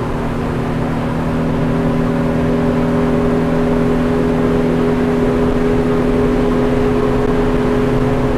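200 hp F200 outboard motor running hard as the boat accelerates at nearly full throttle, a steady drone that grows a little louder over the first couple of seconds and then holds.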